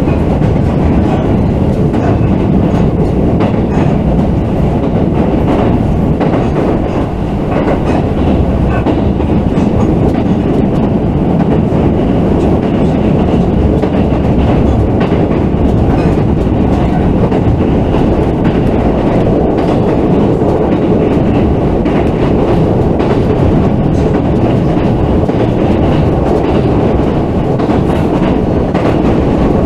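Running noise heard from inside a JR West 221 series electric train car on the move: a steady loud rumble of wheels and motors, with light clicking of the wheels over rail joints.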